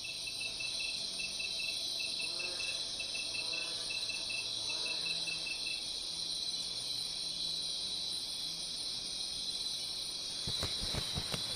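Crickets chirping in a steady night chorus, with a pulsing chirp that stops about halfway through. Near the end a run of quick thumps begins.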